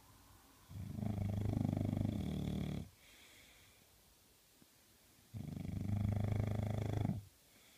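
English bulldog puppy snoring: two long snores of about two seconds each, a few seconds apart.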